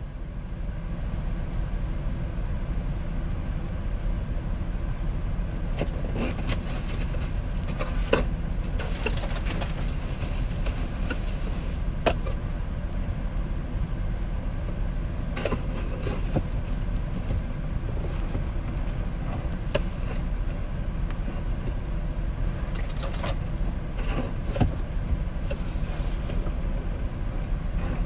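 Steady low rumble of a car idling, heard from inside the cabin, with a few faint knocks and clicks scattered through it.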